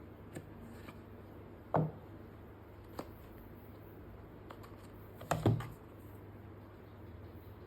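Handling of an iPhone box and its packaging: a few light clicks and taps, with two louder, duller knocks, the last one a quick double, as the box is set down or opened.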